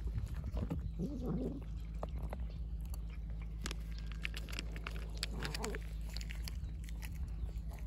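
Cats chewing and eating wet cat food and kibble from bowls, with many quick wet clicks of chewing. A cat meows briefly about a second in and again a little after five seconds. A low steady hum runs underneath.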